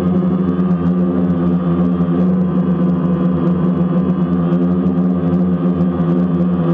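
DJI Phantom quadcopter's electric motors and propellers humming steadily in flight, heard from the camera mounted on the drone: one even, unchanging buzzing drone.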